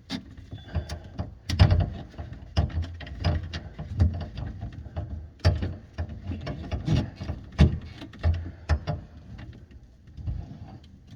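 Drain pipe pieces and fittings being handled and fitted together under a sink: a run of irregular knocks, clicks and clunks, some with a dull low thud.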